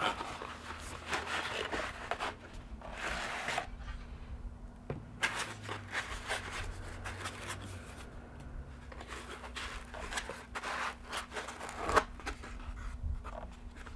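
A drone battery being unpacked from its packaging: irregular rustling, scraping and tearing, with one loud click near the end.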